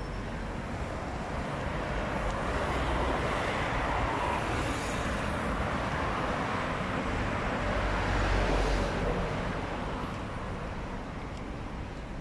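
Road traffic going past: a steady rush of tyre and engine noise with a low rumble, swelling over the first few seconds and easing off near the end.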